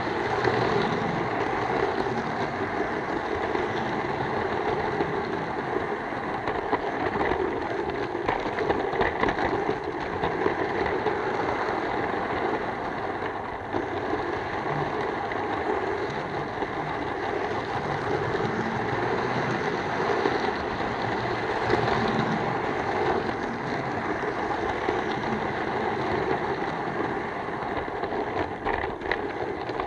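Model railway locomotive running on the track, heard up close from a camera riding on the train: a steady whir of its electric motor and gears with wheel-on-rail rattle and occasional clicks.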